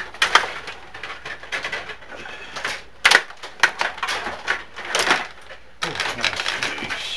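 Table hockey game in play: rapid, irregular clicking and clattering as the players' rods are pushed and spun and the puck knocks against the players and boards, with a few sharper knocks among them.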